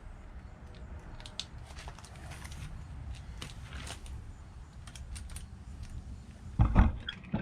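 Light clicks and scrapes of a metal brake lever clamp being worked along a bicycle handlebar, then two loud knocks near the end.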